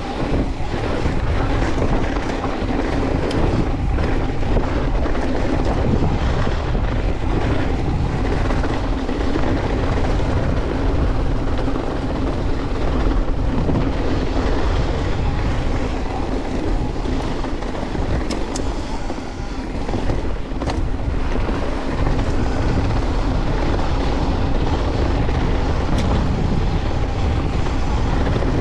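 Santa Cruz Bronson C mountain bike descending a dirt trail: a continuous rumble of tyres and drivetrain rattle under heavy wind buffeting on the microphone, with a few sharp clicks from the bike over rough ground.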